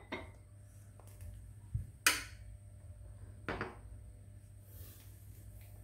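A few sharp clinks and knocks of metal parts handled on a tiled floor, the loudest about two seconds in with a brief ring, over a low steady hum.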